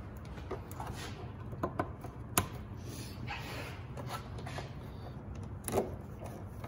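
Plastic push-in retainer clips pressed by hand into a car's plastic radiator support cover: scattered clicks and snaps, the sharpest about two and a half seconds in and another near the end, with hands rubbing over the plastic between them. A steady low hum runs underneath.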